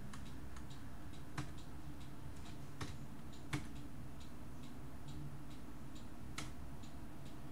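A few isolated computer keyboard key clicks, spaced a second or more apart, over a steady low hum.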